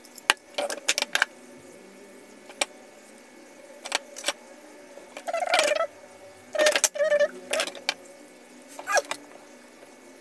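Handling noise on a workbench: scattered clicks and knocks as a handheld two-way radio, a small SWR/power meter and tools are picked up and set down, with a few short squeaks in the second half.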